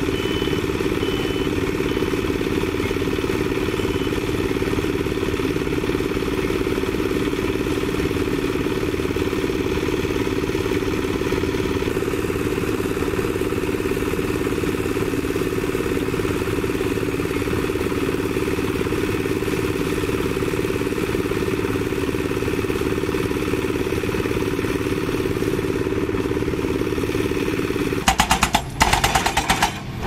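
Engine of a Bomag tandem combination roller running steadily. Near the end it gives way to a hydraulic rock breaker hammering rock in rapid blows.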